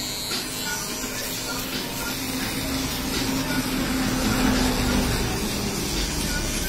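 Kemei TX1 electric shaver running steadily with a buzz as it is passed over the skin of the back of a shaved head.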